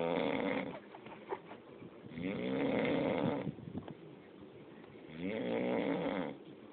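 A man snoring in his sleep, snores coming about every three seconds: one tails off at the start, a full one in the middle, and another near the end.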